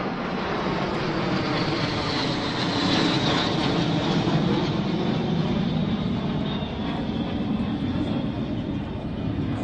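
Jet engine noise: a steady rumble with a faint high whine, swelling a little midway and easing near the end.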